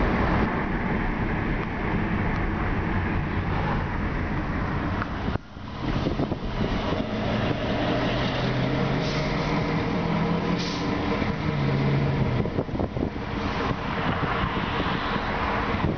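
Road and engine noise inside a moving car's cabin, cut off suddenly about five seconds in. Then a CSX rebuilt GP38-3 diesel-electric locomotive's engine runs steadily as it approaches, with a low hum that rises slightly in pitch, under wind on the microphone.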